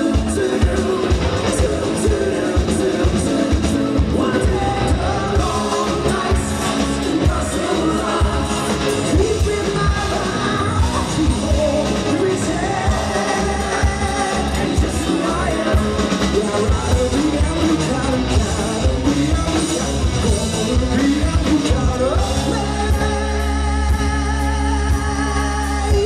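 Live rock band playing a song: lead vocals over electric guitars, bass, keyboards and a drum kit with a steady beat. About four seconds before the end, the beat drops away into a long held chord.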